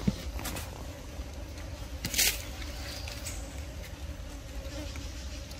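Outdoor ambience with a faint, steady insect buzz over a low rumble. There is a sharp click just after the start and a brief hissy rustle about two seconds in.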